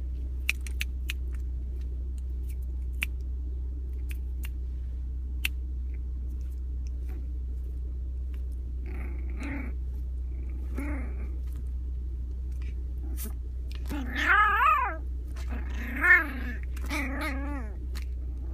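Yorkshire terrier puppy play-biting and giving short, wavering whiny growls, several in the second half, the loudest about 14 seconds in. Scattered light clicks earlier, over a steady low hum of the car.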